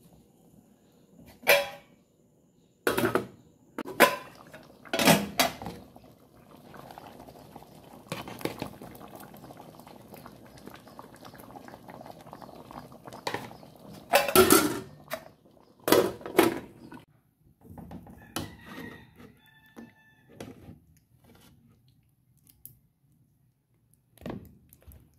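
Metal spoon and utensils knocking against a stainless-steel cooking pot and bowl in a scattered series of sharp clanks, the loudest cluster about two-thirds of the way through, with a softer steady noise of stirring in the middle stretch.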